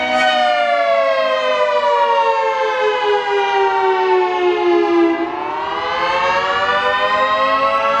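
Federal Signal 3T22 three-tone outdoor warning siren sounding the attack signal: its multi-tone chord winds slowly down in pitch for about five seconds, then winds back up. It is loudest while coasting down with the dampers open, and drops in loudness about five seconds in as the chopper motor is powered again, which shuts the dampers for the rise.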